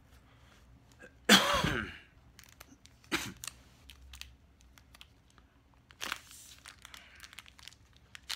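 Clear plastic cigar packaging crinkling and rustling in the hands, with small scattered clicks. About a second in there is one loud cough.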